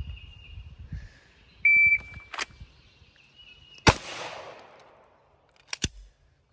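Shot timer's start beep, then about two and a quarter seconds later a single shot from a Walther PDP pistol, loud and sharp, with a fading echo for about a second. Two sharp clicks follow near the end.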